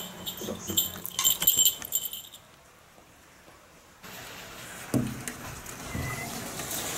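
Keys jangling and clinking for a couple of seconds, then a lull. From about four seconds in comes a steady hiss of rain that grows louder, with a single soft thump about a second after it starts.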